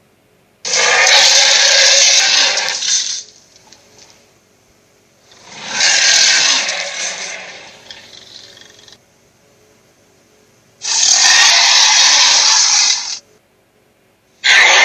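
A series of harsh, rasping sound effects: four bursts of about two seconds each with silence between. Most start and stop abruptly, but the second swells up and fades away.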